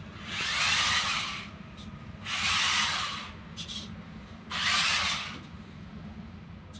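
App-controlled toy rock-crawler car's small electric drive motors and gears whirring in three bursts of about a second each as it is driven in short runs over artificial grass.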